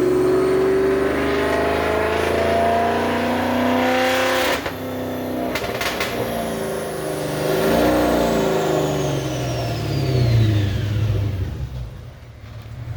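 Whipple-supercharged car engine making a dyno pull: it starts abruptly and revs up with rising pitch for about four and a half seconds, dips briefly, then winds down with falling pitch, a high whine sliding down as it coasts off near the end.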